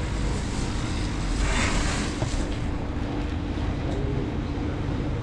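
Steady street traffic rumble, with a brief rushing hiss about a second and a half in.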